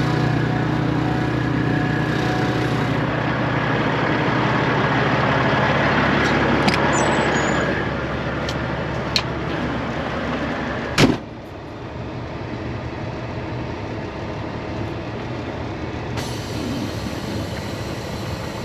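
An engine runs steadily with a few light clicks. About eleven seconds in comes a single sharp, loud knock, and after it the running is quieter.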